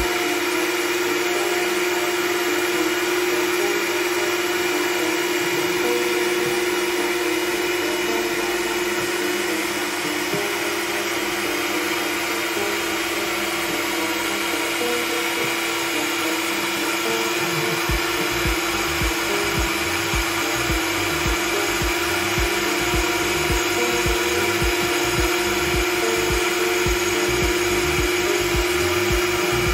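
Makita 700C router spindle on a CNC machine running with a steady high whine as it mills a sheet. About two-thirds of the way through, a regular low pulsing joins in under the whine.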